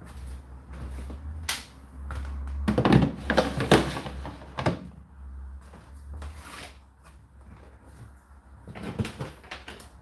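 The plastic condensed-water container of an Indesit condenser tumble dryer being slid back into its drawer slot: a clatter of plastic scrapes and knocks about three to five seconds in, with a few more knocks near the end as it is seated.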